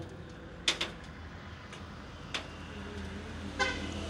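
A steady low machine hum, with a few sharp clicks and knocks and a brief pitched toot near the end.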